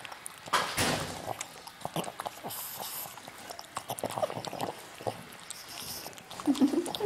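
A dog licking peanut butter off a person's face: irregular wet licking and smacking sounds with sniffs. A brief muffled hum near the end.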